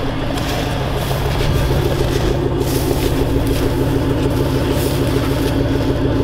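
Exhaust of a 2007 Chevy pickup's 6.0-litre V8 idling just after a cold start at 9 below zero. A steady, even note that grows a little louder about a second in.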